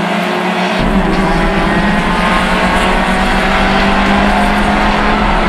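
Race-prepared Honda CRX's four-cylinder engine running hard at fairly steady revs, heard from inside the stripped cabin. Under a second in, the sound switches abruptly from the trackside mix to the in-car sound, which adds a deep, steady low rumble.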